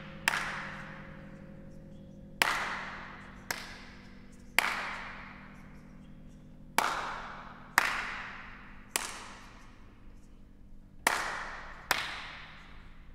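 Sharp slap-like cracks, about nine at irregular intervals a second or two apart, some softer than others, each ringing out in a long hall reverberation over a faint low steady hum, in a contemporary chamber-ensemble piece.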